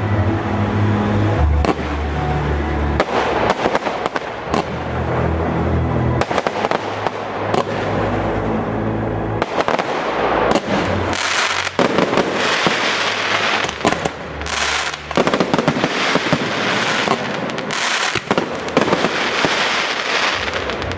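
Fireworks display: a run of shell bursts and bangs, turning into dense crackling from about halfway on. In the first half the show's music plays underneath with a deep bass line that stops about halfway.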